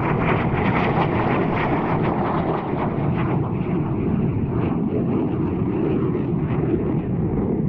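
Eurofighter Typhoon jet's twin Eurojet EJ200 turbofan engines: a steady, loud jet roar, its higher hiss slowly fading.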